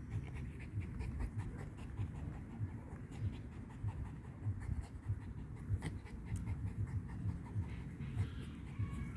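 A dog panting in a steady rhythm, two to three breaths a second, tired out from playing with a ball.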